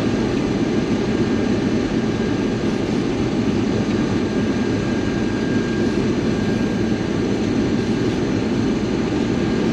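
Combine harvester running steadily at work, an even dense drone with a faint thin whine over it for the first half.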